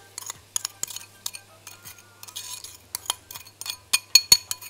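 A utensil clinking and scraping against a glass bowl as sugar is scooped out and tipped into a pan of orange juice, a rapid run of sharp, ringing clinks near the end. A brief hiss about halfway through.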